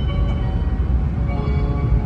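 Steady low rumble of an E7 series shinkansen running, heard inside the passenger cabin, with a melody of short bell-like tones playing over it.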